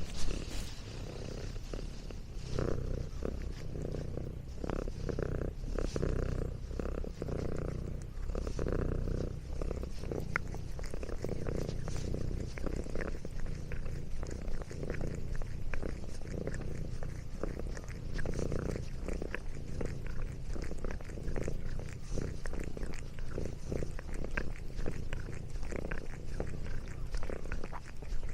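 Domestic cat purring steadily and close up, with many small quick clicks of chewing over it from about ten seconds in.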